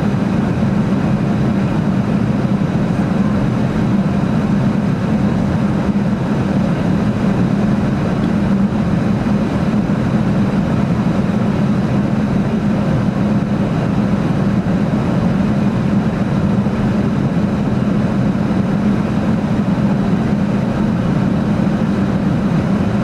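Steady in-flight drone of an airliner as heard inside the cabin: engine and airflow noise with a strong, even low hum, unchanging throughout.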